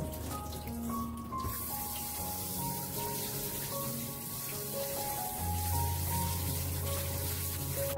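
Water running and splashing as green laver seaweed is rinsed and rubbed by hand in a stainless steel colander, under background music with long held notes.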